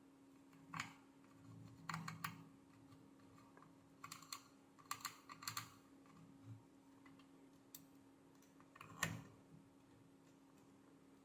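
Faint, scattered light clicks and taps, irregular and a dozen or so in all, over a steady low hum.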